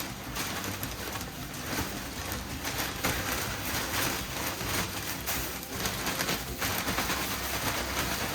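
Dry pine shavings rustling and hissing as they are poured and spread in a chick brooder, a continuous rustle that swells and eases every second or so.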